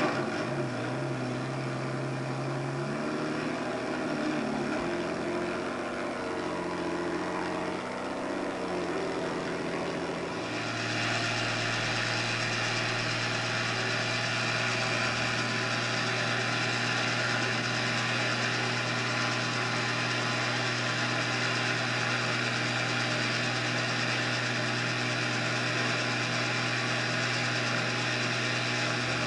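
Helicopter engine and rotor heard from inside the cabin: a wavering hum that climbs in pitch, then about ten seconds in grows louder and settles into a steady drone.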